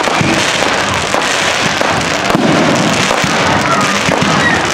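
Fireworks display: aerial shells bursting in a dense, continuous run of bangs and crackling.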